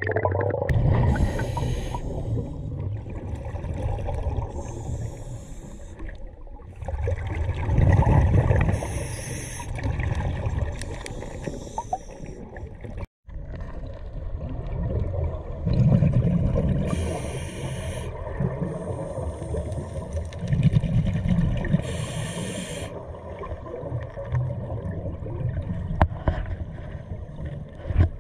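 Scuba diver breathing through a regulator underwater: a breath every few seconds, each a hissing inhale followed by a low rumbling rush of exhaled bubbles. The sound cuts out briefly about halfway through.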